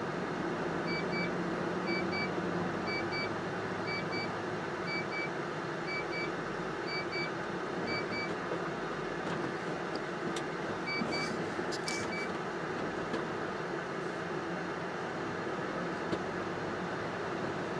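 Steady engine and road noise inside the cab of a MAN TGS 40.480 truck driving with a newly fitted clutch kit. Over it an in-cab warning beeps in quick double pips about once a second through the first half, then twice more a few seconds later.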